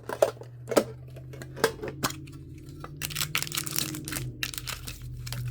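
Hands handling metal mini tins and crinkling foil Pokémon booster packs: sharp clicks and taps in the first two seconds, then denser crinkling and rustling from about three seconds in, over a steady low hum.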